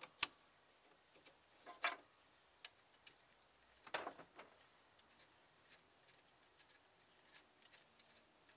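Hand-tool work on a car's A/C line fitting: a sharp metallic click just after the start, then a few short scrapes and faint clinks of locking pliers and a wrench on the fitting.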